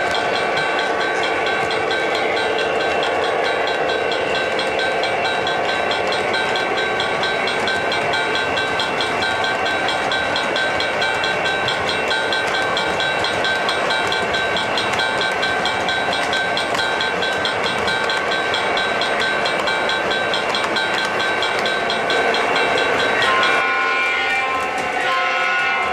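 O gauge model freight train of Conrail GP30 diesels and covered hoppers rolling past on three-rail track, a steady running sound with a fast, even pulsing ring high up. About 23 seconds in the pulsing stops and steadier tones take over.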